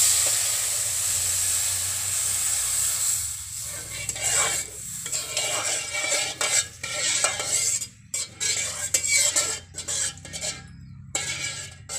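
Milk poured into a hot wok of ghee-fried semolina, sizzling with a loud hiss that dies away over the first few seconds. Then a metal spatula scrapes and stirs the semolina and milk in the metal wok in short, irregular strokes.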